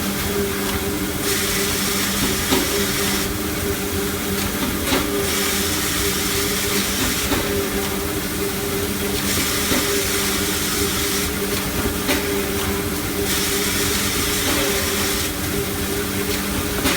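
Automatic band saw cutter for maxi toilet paper rolls running, with a steady machine hum under a hiss. The hiss swells and falls back about every four seconds, in a repeating cutting cycle.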